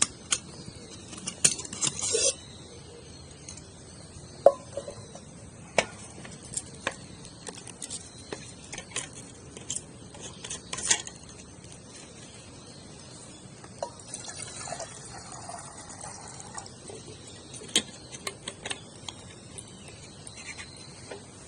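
Wood campfire burning, with irregular sharp crackles and pops over a low hiss.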